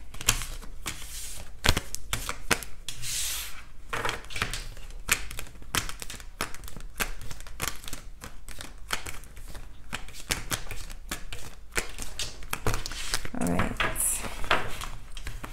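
Tarot cards being gathered off a table and shuffled by hand: a quick, irregular run of crisp card clicks and snaps, with short rustling riffles about three seconds in and again near the end.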